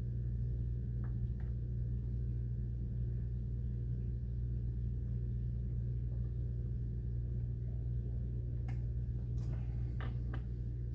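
A steady low hum runs throughout. Over it come a few faint clicks of a hand-turned Allen key on the heat exchanger cover's screws, a pair about a second in and several more near the end.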